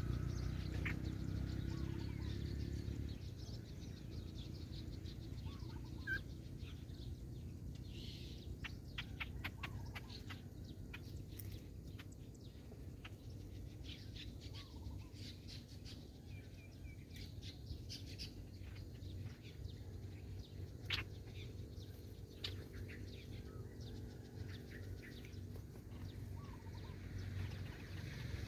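Small birds chirping and twittering in short, scattered calls. A low motor hum fades out in the first few seconds and comes back near the end.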